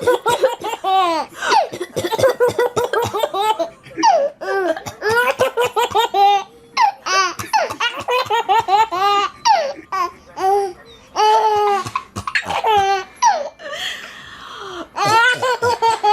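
A baby laughing hard in repeated bouts of high-pitched belly laughter, each bout a quick run of pulses, with a short lull shortly before the end.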